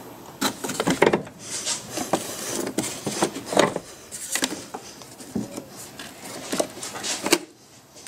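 Long needle-nose pliers and hands clicking, scraping and knocking irregularly inside a car's engine bay, fishing a soft clutch line up from behind the fuse box, with a sharp click near the end.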